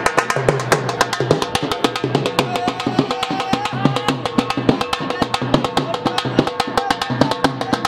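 Background music with a fast, steady drum beat.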